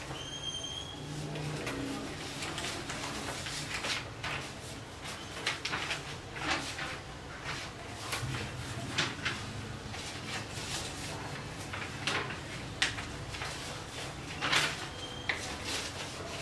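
Someone rummaging through a drawer full of papers: scattered knocks, clicks and paper rustling as papers and objects are handled and moved about.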